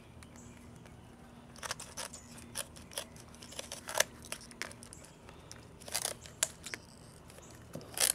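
Hand shears cutting through a thin cured fiberglass skin of mat and cloth, a series of sharp snips at irregular intervals.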